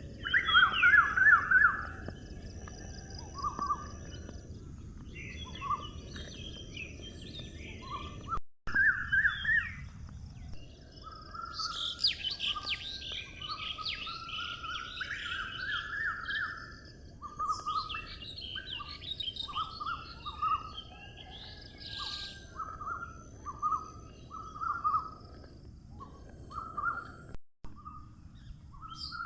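Pet parrots chirping and calling: a string of short repeated chirps, with stretches of rapid, higher-pitched chatter in the middle, over a steady background hiss.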